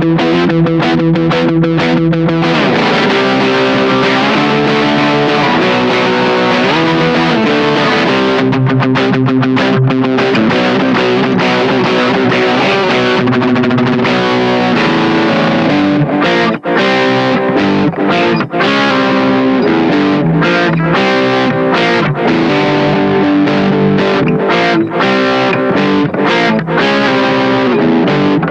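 Electric guitar played with a distorted tone through a Laney Ministack B-Lion mini amp. Quick chugging strokes in the first two seconds, then a slide down into held chords and riffs with a few brief stops.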